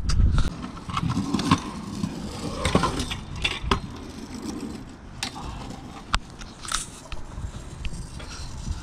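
Kick scooter rolling over rough asphalt, a gritty rolling noise broken by several sharp clacks.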